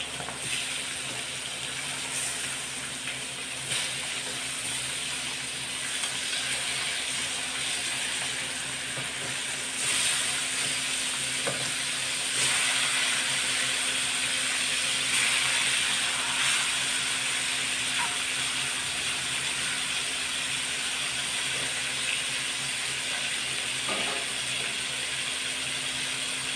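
Slices of pork liver sizzling as they fry in oil in a metal wok, with the scrape and clink of a utensil against the pan as the slices are turned.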